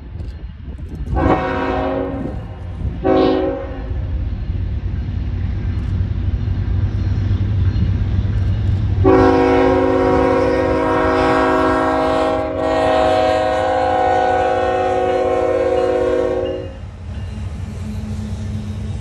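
Diesel freight locomotive's air horn sounding a chord: two short blasts a second or two in, then one long blast from about nine seconds in to nearly seventeen. Under it the low rumble of the approaching CSX locomotives grows as they pass close by near the end.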